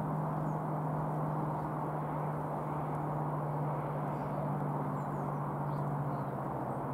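Steady low drone of an approaching CrossCountry Voyager diesel train, still some way off, over a rumble of background traffic, with a few faint high chirps.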